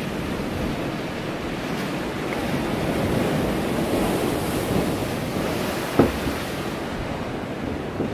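Steady rushing of wind and lapping water in a swimming pool used as a wave tank, swelling slightly in the middle, with one sharp knock about six seconds in.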